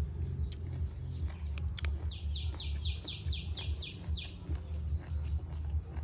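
A bird calling a quick run of about nine short notes, each sliding downward, about four a second, partway through. Under it runs a low rumble, with a few sharp clicks of fresh vegetables being snapped by hand.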